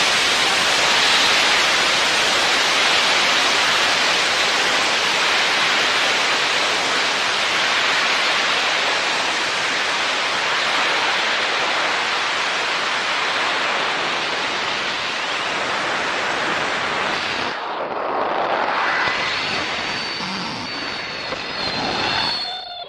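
Steady, loud rushing noise on an onboard camera's microphone. About three-quarters of the way in it thins out and changes, and faint high whistling tones come in near the end.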